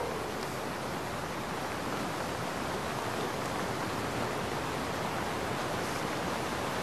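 Steady, even hiss of outdoor recording background noise, with no call heard.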